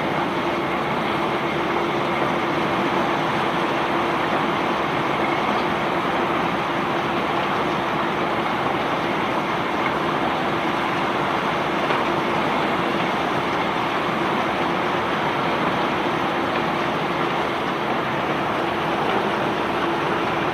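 Belt conveyor carrying bulk sand or rock while a ship is unloaded: a steady, unbroken rushing noise with a constant low hum from the running machinery.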